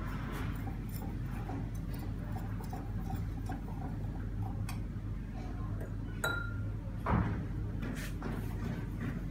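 Glass stirring rod clinking against a glass beaker while sodium acetate is stirred into water: light, irregular ticks throughout, with one clear ringing clink about six seconds in and a couple of duller knocks soon after.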